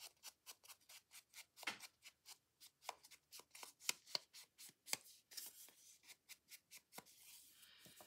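Glue stick rubbed over paper in short, quick strokes, a few a second, spreading glue onto a paper pocket flap.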